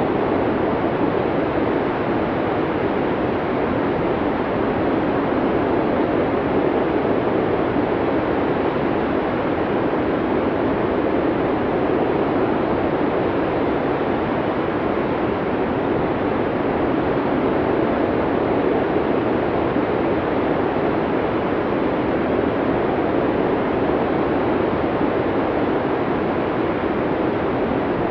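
Snowstorm wind: a steady, even rushing noise with no gusts, breaks or separate sounds, deepest and fullest in the low-middle range.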